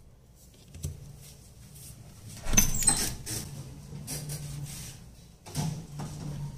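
Knocks and clatter from hard objects being handled, loudest about two and a half seconds in with a brief metallic clink, over a steady low hum.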